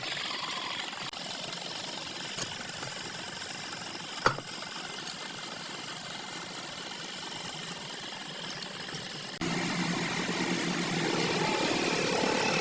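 Wood lathe running steadily, with a sharp knock about four seconds in. About nine seconds in the sound cuts suddenly to a louder, steadier hum.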